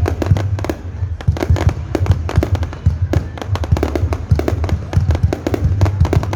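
Fireworks display: a dense, continuous barrage of sharp bangs and crackles over deep booms.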